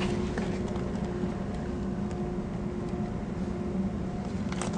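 A steady mechanical hum holding one constant pitch, with faint rustle underneath.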